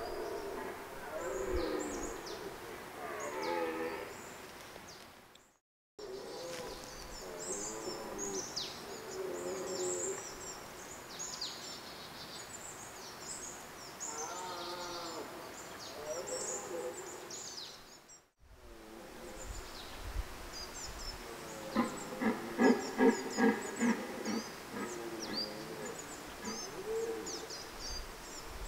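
Red deer stags roaring in the rut: long, wavering calls that recur, with a rapid run of short grunting bellows a little past the middle. Small birds chirp in the background, and the sound breaks off briefly twice.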